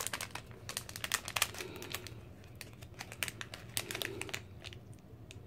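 Plastic blind-bag packaging crinkling and crackling as it is handled and torn open: a quick, irregular run of sharp crackles that thins out near the end.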